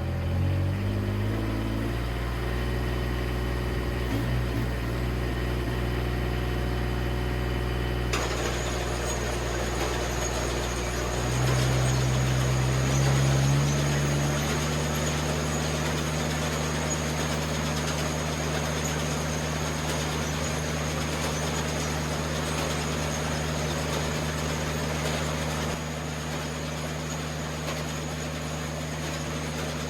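Gas engine of an Eastonmade 37D log splitter starting up and revving, then running steadily. About eight seconds in, a steady hiss joins it, and a few seconds later the engine note shifts and briefly gets louder before settling.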